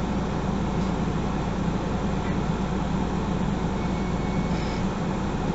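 MAN NG 363 articulated city bus running steadily, heard from inside the passenger cabin: an even low engine drone mixed with road and running noise.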